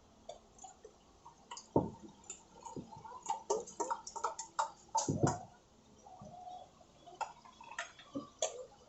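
Irregular clicks and knocks of kitchen utensils, a knife and spoons striking a board, plates and bowls, while street food is being prepared. Two heavier thumps come about two and five seconds in.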